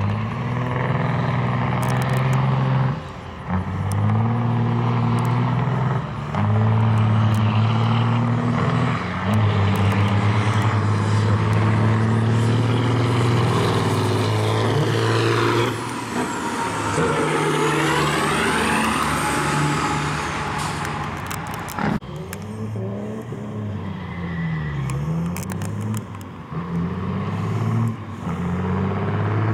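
Diesel semi-truck engines at full throttle on a drag run. The pitch climbs and drops back at each gear change every few seconds. A high whine rises and falls about halfway through, and near the end a diesel revs up and down.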